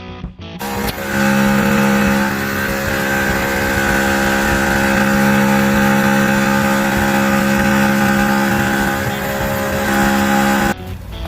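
Xiaomi 70mai Midrive TP01 portable air compressor running: a loud, steady buzzing drone that starts about half a second in and cuts off suddenly near the end.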